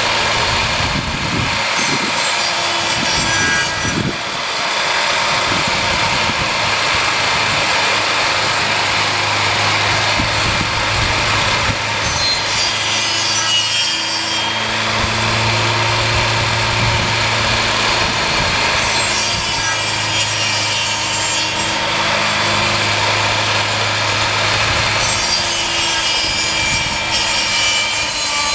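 Table saw running with its spinning blade grinding down a wooden tree stump: a steady rasping of cut wood over the steady hum of the saw's motor.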